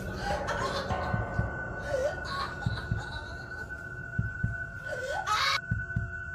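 Dark trailer sound design: low thumps pulse irregularly under a steady high tone, with swooping glitchy sweeps about two seconds in and again near five seconds.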